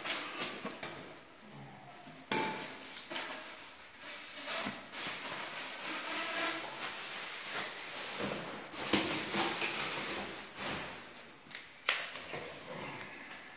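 Plastic wrapping and cardboard rustling, with repeated clacks and knocks of rigid plastic vacuum-cleaner extension tubes and fittings being handled and unpacked.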